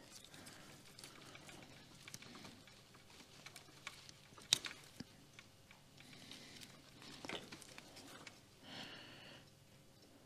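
Faint handling noise with scattered small clicks, one sharper click about four and a half seconds in, and a soft hiss near the end, as the button on the Volvo's diagnostic unit is worked.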